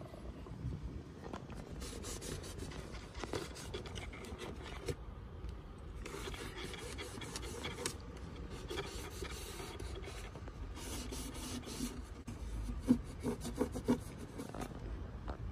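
Paper towel rubbing and wiping against the inside of a Nissan Qashqai's plastic air filter housing, in stroke after stroke that come and go, with a few short knocks on the plastic near the end.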